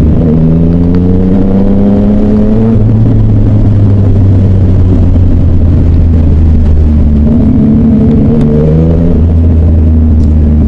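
Yamaha Tracer motorcycle engine riding through city traffic, rising in pitch as it accelerates near the start and again later, over a steady low rumble.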